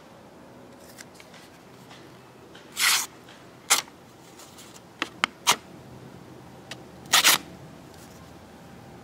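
Handling noise: a few sharp clicks and two short rustling bursts, about six sounds in all, with quiet between them.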